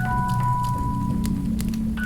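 Soft background music, slow held melody notes over a steady low bass, with wood-fire crackles ticking through it.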